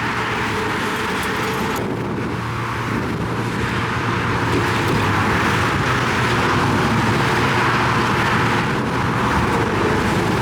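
Heavy construction machine's engine running steadily under work, with a low hum beneath a broad mechanical noise; it grows a little louder about three seconds in.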